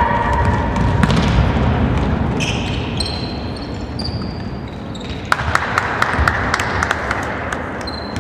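A basketball being dribbled and bounced on a hardwood court, heard as scattered sharp knocks, with short high squeaks from sneakers around the middle. The sound carries the echo of a large gym hall.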